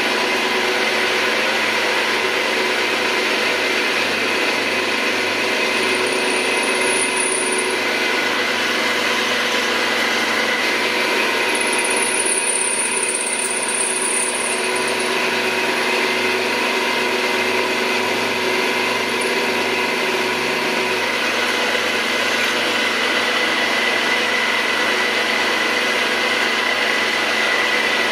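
Drilling machine running steadily, a 4.5 mm cobalt drill bit cutting out old threads in a Hart Parr tractor carburettor part, with a high-pitched squeal coming in twice in the middle.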